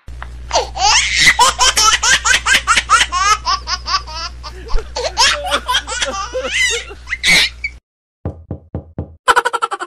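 Fast, high-pitched laughter, a run of 'ha-ha' bursts for about seven seconds that cuts off abruptly, like a dubbed-in laughing sound effect. It is followed by a few short knocks and a brief burst of rapid pulses near the end.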